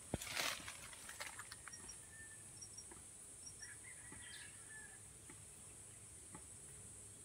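Faint steady high-pitched buzz of forest insects, with a few short bird chirps in the middle. A brief knock and rustle of handling comes right at the start.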